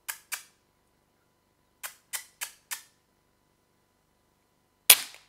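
A .22 PCP airgun firing one shot, a single sharp crack that is the loudest thing here, near the end. It is preceded by six quieter sharp clicks, two near the start and four in quick succession a couple of seconds in.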